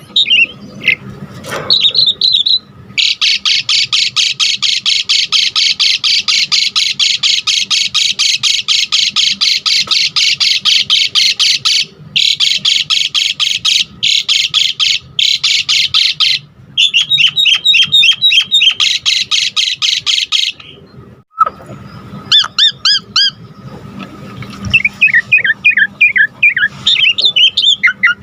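Javan pied starling (jalak suren) singing hard. A long, fast run of rapidly repeated notes lasts about thirteen seconds, broken by a few brief gaps, then gives way to quick chattering phrases. After a short pause about three-quarters of the way in come varied whistles and chatter.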